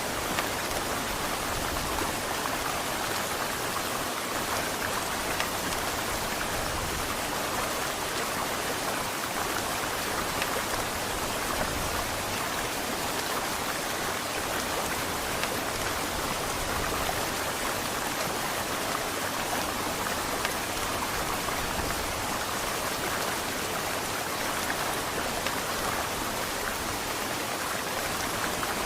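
Heavy rain falling steadily, an even hiss of drops with no thunder.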